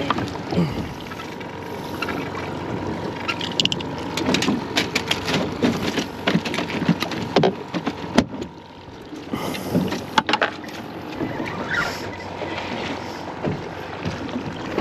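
Irregular knocks and clicks of a fish and fishing gear being handled on a fibreglass boat deck and fish-box hatch, over a steady hiss of wind and water around the boat, with a faint steady hum throughout.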